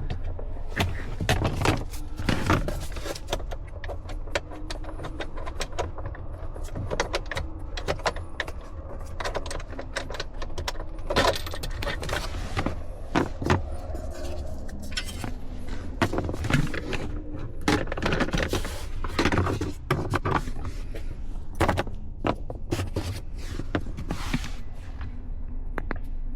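Hand tools working 10 mm bolts loose from a car's steering column: irregular metallic clicks, clinks and knocks of a socket wrench, with scraping and handling noise.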